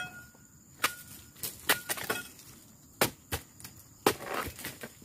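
Palm harvesting chisel (dodos) on a long pole striking and cutting through the woody frond bases of an oil palm. There are about eight sharp chops at uneven intervals, a few with a brief metallic ring.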